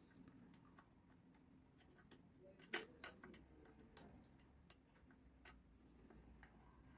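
Faint, irregular metallic clicks of a pick tool working the pin tumblers in the cross-keyway cylinder of a nine-pin Stalf garage lock, with one louder click a little before the middle.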